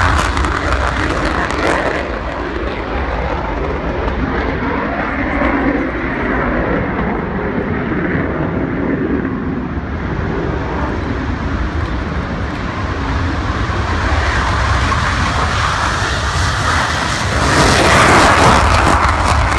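Panavia Tornado jets' Turbo-Union RB199 turbofans at take-off power as the aircraft roll down the runway and take off. Loud at first, the noise eases and dulls through the middle, then swells again near the end as the next jet goes by.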